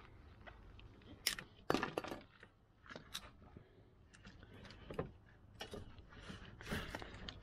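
Scattered clicks and rustles of gloved hands working a car's wiring loom, electrical tape and plastic clips, with several sharper clicks among them.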